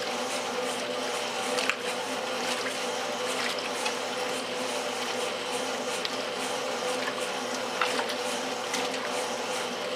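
1968 Kenmore top-load washer agitating a load of clothes: water churning and sloshing in the tub over the steady hum of the motor and agitator drive. A couple of sharper slaps stand out, about two seconds in and near the end.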